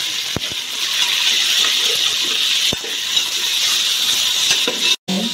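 Chicken pieces sizzling in hot oil in a metal pot as they are stirred with a metal ladle to brown them, with a few sharp clinks of the ladle against the pot. The sound cuts out for an instant near the end.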